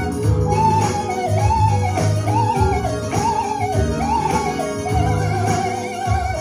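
Electric keyboard playing an R&B groove: a rhythmic bass line under a melody line that slides and bends in pitch.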